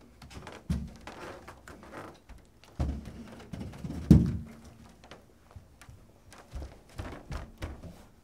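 A series of dull thumps at irregular intervals, the loudest about four seconds in.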